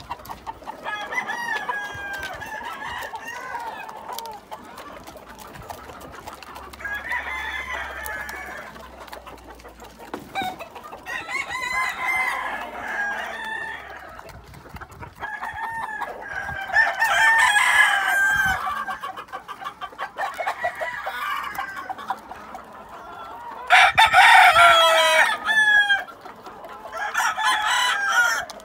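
Gamecock roosters crowing one after another, a crow every few seconds from birds near and far. The loudest crows come a little past halfway and again near the end.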